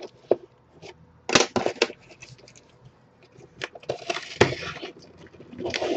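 Cardboard shipping box being handled and turned over on a table: scattered knocks and scrapes, several close together about a second and a half in, and a longer rustle and crinkle of the box and its taped plastic film about four seconds in.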